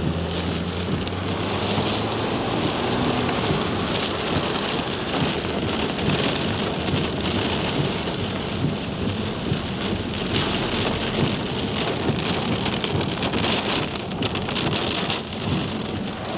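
Heavy wind-driven rain pelting the chase truck, a dense, steady downpour drumming on the vehicle, in the rear-flank downdraft of a tornadic storm.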